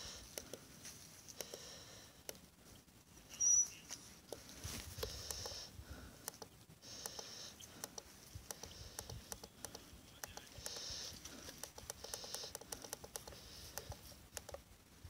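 Plastic buttons on a Sangean DAB radio clicking as they are pressed again and again during manual tuning, with one short high beep about three and a half seconds in.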